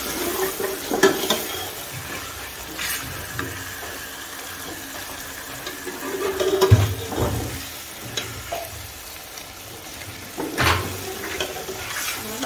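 Beef karahi sizzling as it is stir-fried in a large aluminium pot, a spatula turning and scraping through the thick masala. There are a few sharper scrapes of the spatula against the pot, near the start, midway and near the end.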